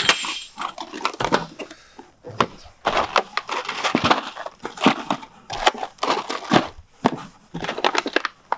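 Engine rebuild parts being unpacked from a cardboard box and set down on a table: irregular knocks and clicks with handling noise.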